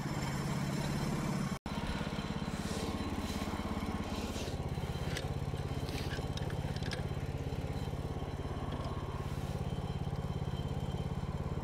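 Woodland Mills HM130 portable sawmill's small gasoline engine running steadily with a low hum, with a few faint scrapes and knocks as a pine cant is handled on the mill bed.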